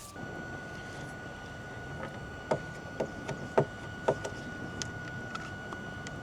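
BioLite CampStove's fan running with a steady high whine that steps up in pitch right at the start. The wood fire in the stove pops and crackles sharply about half a dozen times.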